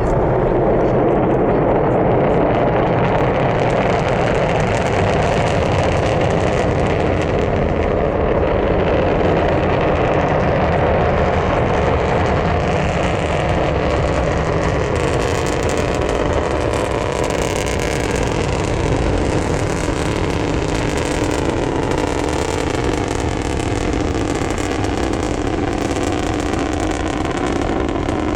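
Antares rocket's first-stage engines (two Russian RD-181s) roaring at launch, heard from a distance as a loud, steady rumble. Crackling builds in from about halfway through.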